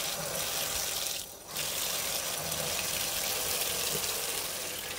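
Kitchen faucet running warm water into a stainless steel sink to rinse dry beans in a glass bowl, a steady splashing flow that dips briefly about a second in.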